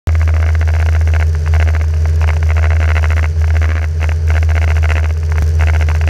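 Mini ultralight trike's engine and pusher propeller running steadily in flight, a low drone with a brighter buzzing rattle that keeps cutting in and out over it: the sound of a broken exhaust silencer baffle.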